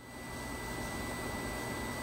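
Steady electrical hiss with a low hum and a thin, steady high-pitched tone, from a running vintage Heathkit laboratory oscilloscope.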